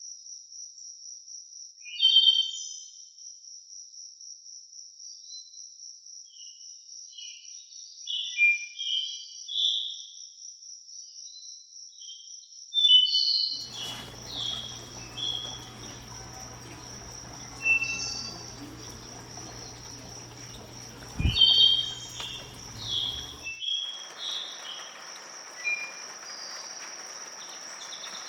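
Forest ambience: an insect keeps up a steady, high, finely pulsed trill while several songbirds call and sing in short phrases, loudest about 2, 13, 18 and 21 seconds in. A low steady hum with some background noise comes in about halfway and stops abruptly around 23 seconds.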